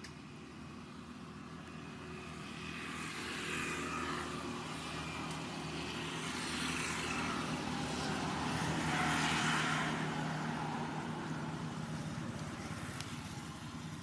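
Background vehicle noise: a steady low hum under a rushing sound that swells and fades several times, loudest about nine seconds in.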